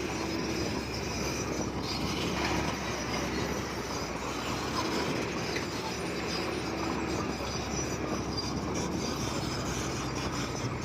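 Komatsu crawler bulldozer at work: its diesel engine running steadily under the metallic clatter and squeal of its steel tracks.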